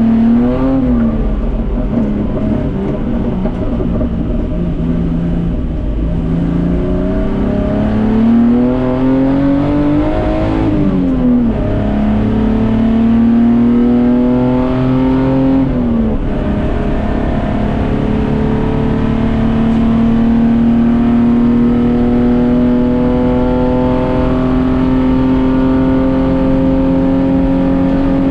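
Datsun 240K Group C race car's straight-six engine under hard acceleration. The revs climb and drop sharply at upshifts about a second in, about eleven seconds in and about sixteen seconds in, then climb slowly and steadily in a high gear.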